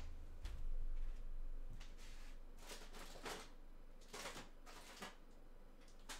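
Faint scattered clicks and rustles of someone handling things at a distance, over a steady low hum.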